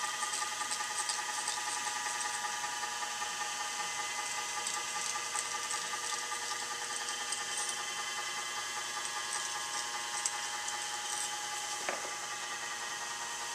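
Hand file scraping the thin sheet-metal edge of a kerosene lamp's wick dome in short, scratchy strokes to deburr the freshly ground opening, over a steady machine hum.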